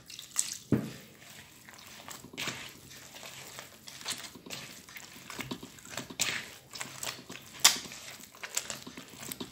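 Hands kneading and squeezing soft pastry dough in a plastic bowl: irregular soft squishes, slaps and pats.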